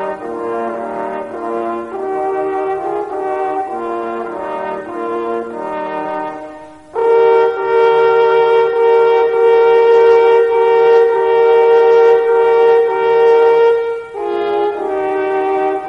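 Brass instruments playing a tune of short notes, then holding one long loud chord for about seven seconds before the moving notes resume.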